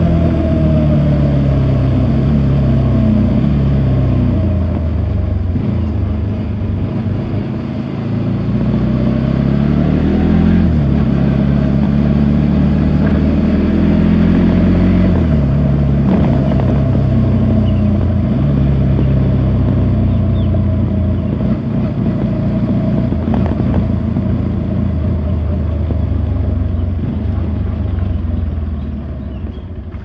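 Bajaj NS200's single-cylinder engine under way, heard from the rider's seat, its pitch repeatedly rising and dropping in steps as the bike accelerates and changes gear, then easing off near the end as it slows.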